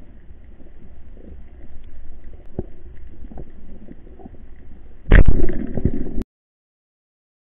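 Underwater reef ambience with scattered faint clicks and crackles. About five seconds in comes a sudden loud thump and a second of rattling noise: a speargun being fired at a black sweetlip. The sound then cuts off suddenly.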